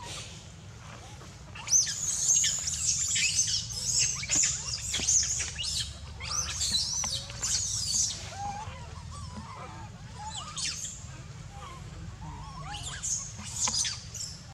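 Baby long-tailed macaque screaming in high, wavering squeals, the distress cry of an infant wanting to nurse. The screaming starts about two seconds in and comes in bouts, with a few lower calls around the middle.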